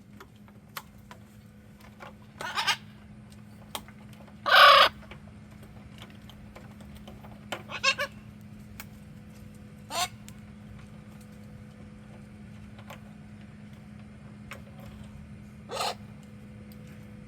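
Parrots squawking in about five short, separate calls, the loudest a harsh squawk about four and a half seconds in. A steady low hum runs underneath.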